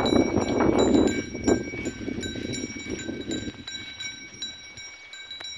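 Small bells on a pair of working bullocks ringing as they pull a hoe through a cotton field: several high, steady ringing tones that start and stop repeatedly. Under them a rough rushing noise, like wind on the microphone, fades away about three and a half seconds in.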